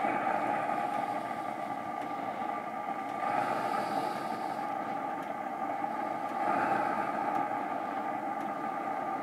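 Chinese diesel air heater running with its burn chamber cut open: the combustion-air fan and burner give a steady rushing whir. It swells slightly louder about three seconds in and again about six and a half seconds in.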